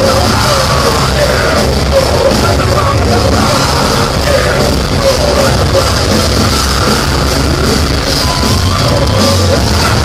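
Heavy metal band playing live and loud: fast, distorted guitars and drums with a screamed vocal.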